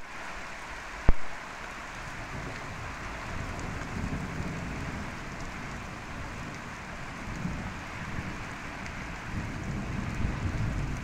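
Steady hiss of heavy rain with floodwater running over a road, under a low rumble that swells and fades several times. A single sharp knock about a second in is the loudest sound.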